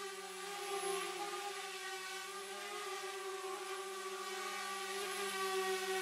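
Multirotor drone's propellers and motors whining steadily, the pitch wavering slightly, with a steady hum beneath.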